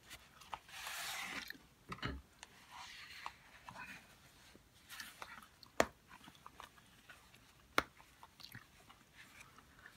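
Faint handling of a leather watch pouch and its cardboard sleeve: a soft scraping swish as the pouch slides out about a second in, then leather rustling and small taps. Two sharp clicks, about six and eight seconds in, as the pouch's snap fasteners come undone.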